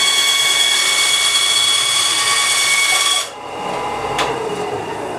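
Bandsaw cutting through a sheet of 1/8-inch G-10 fiberglass: a loud, steady cutting noise with a high ringing whine. It drops off abruptly about three seconds in as the blade clears the piece, leaving a quieter running sound with a single click about a second later.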